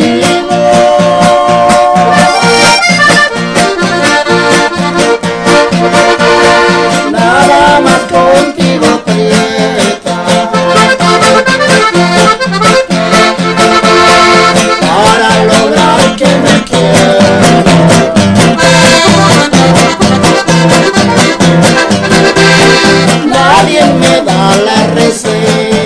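Hohner Verdi piano accordion playing a ranchera melody over steady strummed acoustic guitar.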